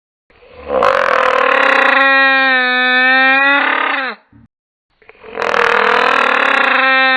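Dinosaur sound effect: two long drawn-out calls, each starting rough and raspy, then settling into a steady held tone and dropping in pitch as it ends.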